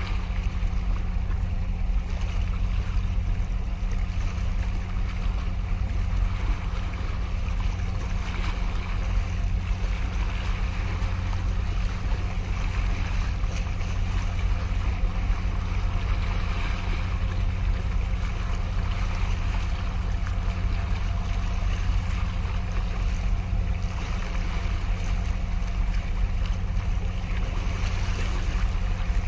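Small sea waves washing and sloshing against concrete breakwater blocks over a steady low drone.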